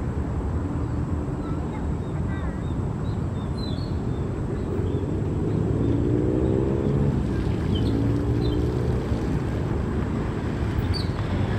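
Jet airliner engines rumbling at the airfield, a steady low roar with an engine tone that rises in pitch about halfway through.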